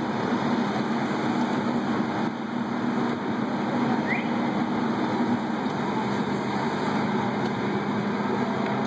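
Fire engine's diesel engine running steadily, a constant hum under an even rushing noise.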